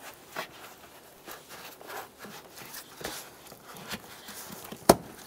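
Ribbed rubber air intake tube being worked onto its fittings by gloved hands: soft rubbing and rustling with scattered light clicks, and one sharp click near the end.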